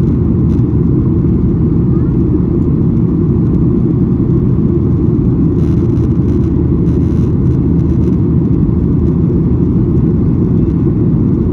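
Steady low roar inside the passenger cabin of a Boeing 737-800 in flight: its CFM56 engines and the airflow over the fuselage, heard as an even, unbroken rumble.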